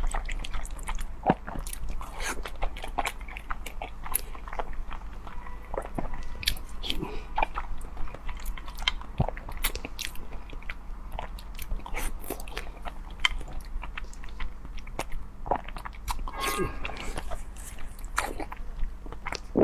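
Close-miked eating: chewing and biting with many small, irregular mouth clicks and light crunches.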